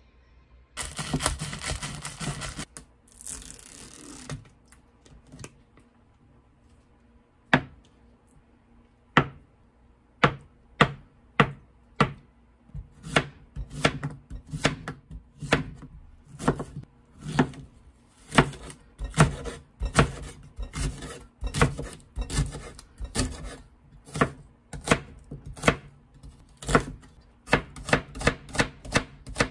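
Broad-bladed kitchen knife chopping zucchini and onion on a wooden cutting board: sharp knocks of the blade striking the board. They begin several seconds in as single slow chops and quicken to about two or three chops a second.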